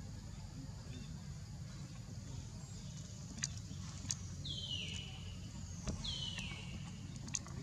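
Baby monkey crying: two high-pitched squeals about a second and a half apart, each falling in pitch, over a steady low rumble with a few sharp clicks.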